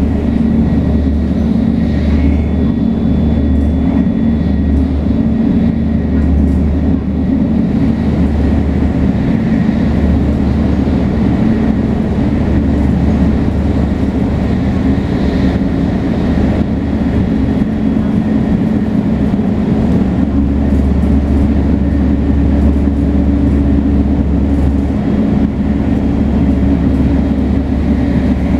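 Shinkansen 500 series with Toshiba GTO-VVVF traction running between stations: a loud, steady deep rumble with faint steady high tones above it, no sudden events.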